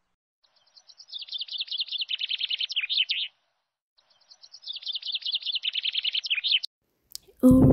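Bird chirping: two bursts of rapid, high-pitched chirps, each about three seconds long, with a short pause between. Both bursts follow the same pattern.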